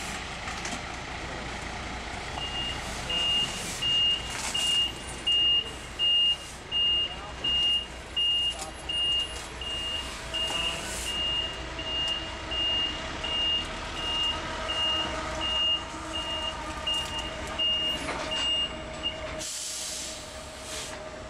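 Heavy military truck backing up, its reversing alarm beeping steadily at about one and a half beeps a second over the running engine. The beeping stops near the end and a short hiss of air follows, typical of the air brakes being set.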